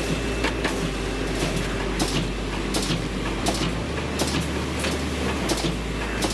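A machine running with a steady hum and a sharp clack repeating about every two-thirds of a second.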